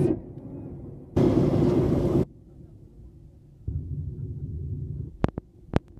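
Airliner cabin noise, a steady roar, cutting out and back in abruptly several times, with three sharp clicks near the end.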